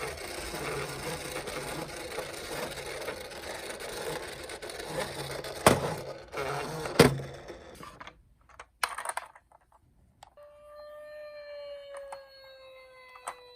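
Toy minicar running with a steady whirring rattle, broken by two sharp knocks about six and seven seconds in. After a brief lull, a steady electronic tone starts near the end and slowly dips in pitch and rises again.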